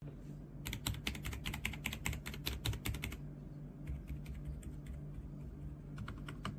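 Typing on a mechanical keyboard fitted with AKKO Fairy silent linear switches: a fast run of keystrokes for about two and a half seconds, then scattered single key presses, over a steady low hum.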